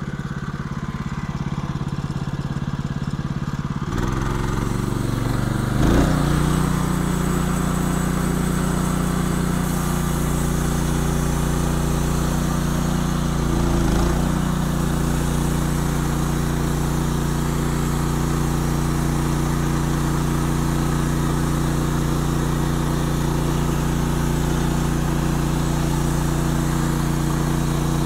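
Norwood LM29 band sawmill's gas engine idling, then throttled up about four seconds in, with a thump soon after, and running steadily under load as the band blade cuts along the squared cant.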